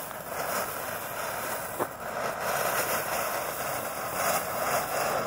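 TNT Fireworks 'Sunshine' fountain firework spraying sparks with a steady hiss, with one sharp pop about two seconds in.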